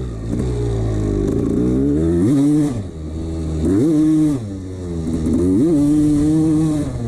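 1989 Honda CR250's single-cylinder two-stroke engine running, blipped up in revs three times and dropping back each time.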